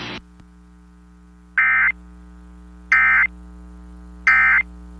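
Three short bursts of Emergency Alert System digital data tones, evenly spaced about a second and a half apart, over a faint steady hum. This is the end-of-message code that closes the tornado warning just read.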